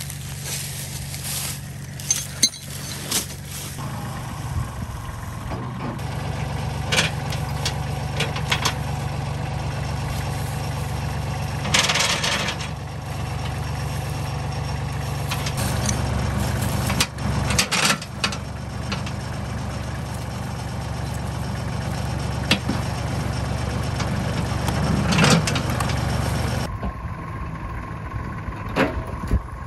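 Kubota tractor's diesel engine idling steadily, with scattered clinks and knocks from a logging chain being wrapped around a log. Near the end the sound changes suddenly to the tractor heard from farther off.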